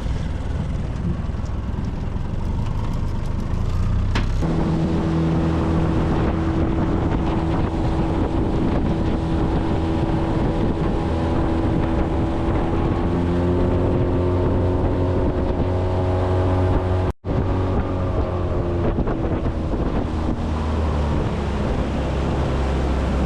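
Small boat's outboard motor running under way, with wind buffeting the microphone. A steady engine hum settles in about four seconds in, and the sound drops out for an instant about two-thirds of the way through.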